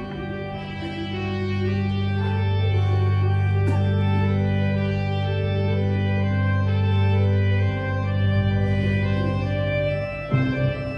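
Organ playing the instrumental introduction to a choral hymn in sustained chords, the bass line shifting about eight seconds in and again near the end.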